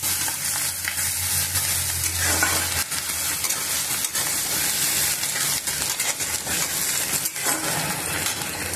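Chopped onions sizzling in hot oil in a kadhai, being fried until golden, while a metal slotted spatula stirs them and scrapes against the pan with irregular clicks.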